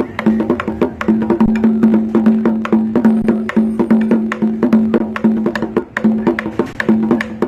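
Bambuquito, a small thick-skinned drum, struck quickly with sticks in the fast puya rhythm (5/8), over a held pitched tone that breaks into short phrases.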